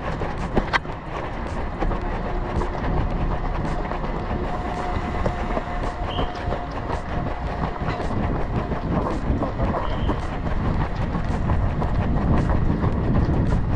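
Running footsteps heard from a head-mounted action camera as the wearer runs at speed, a steady rhythmic pounding over a rush of wind on the microphone.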